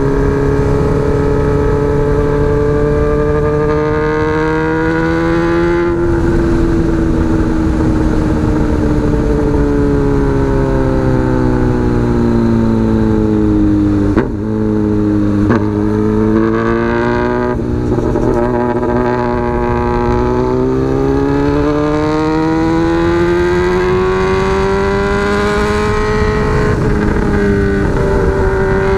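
Honda Hornet CB600F inline-four engine running through a megaphone exhaust while riding. The engine note climbs, drops at a gear change about six seconds in, falls steadily as the bike slows until about halfway, then climbs again through most of the second half. Two sharp clicks come near the middle.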